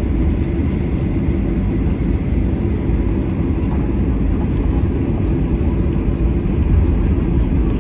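Steady cabin noise of a Boeing 737-800 rolling along the ground: its CFM56 jet engines running with a low rumble from the wheels, heard from a window seat, growing a little louder near the end.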